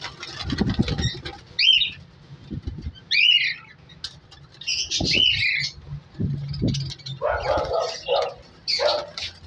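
Budgerigars chirping in an aviary cage: short, sharp calls every second or two, busier chatter near the end, with some wing flapping and a few low thumps.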